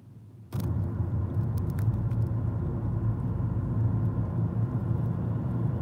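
Steady low rumble of a car heard from inside the cabin, setting in suddenly about half a second in, with a few faint clicks near the start.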